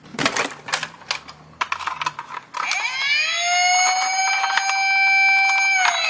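Plastic toy cars clicking and knocking together as they are handled in a cardboard box. About two and a half seconds in, a battery toy police car's electronic siren sounds: a wailing tone that rises, then holds steady.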